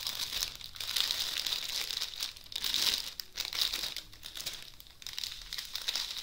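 Plastic crinkling in irregular surges as a clear wrapper is pulled off a bundle of small plastic bags of diamond painting drills and the bagged drills are handled.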